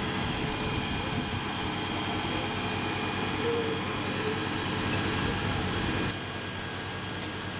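Fire engine's engine-driven water pump running steadily while supplying a hose line: an even mechanical drone with a steady high whine over it. About six seconds in it drops to a quieter, similar drone.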